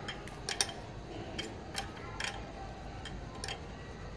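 A 12 mm spanner working the mounting nut of a motorcycle horn as the nut is tightened: a few sharp clicks at irregular intervals.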